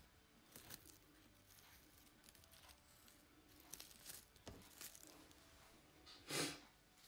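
Near silence with faint taps and crinkly rustles of hand work: an acrylic nail brush patting product onto a nail and a plastic-gloved hand shifting. One brief, louder rustle comes about six seconds in.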